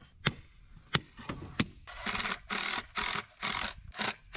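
Four sharp hammer blows on a steel concrete form stake, then a cordless drill driving a screw through the stake into a 2x4 brace in about five short trigger bursts.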